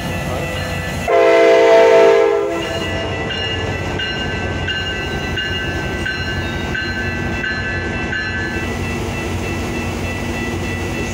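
Metra diesel locomotive and bi-level coaches rumbling past a grade crossing. About a second in, one horn blast sounds for about a second and a half, the loudest sound here. A crossing warning bell rings steadily under the train noise.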